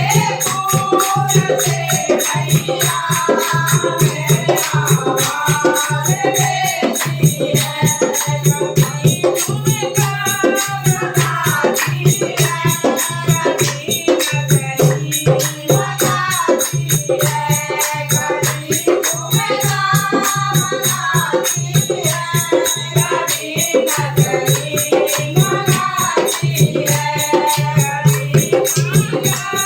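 Hindi devotional bhajan: singing over a steady beat of hand percussion with rattles and jingles, and a sustained low drone.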